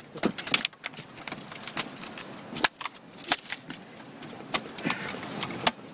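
An irregular series of sharp knocks and clatters over a steady background hiss.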